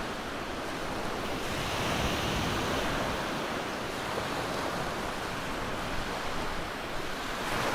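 Ocean surf washing onto a beach: a steady rushing noise of waves that swells and eases gently.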